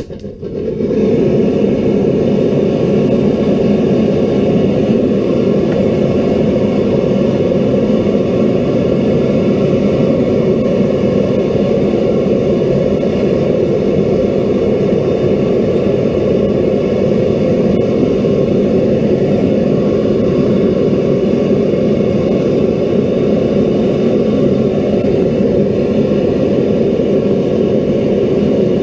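A forge running with a steady, loud, even rush of flame and air, starting suddenly.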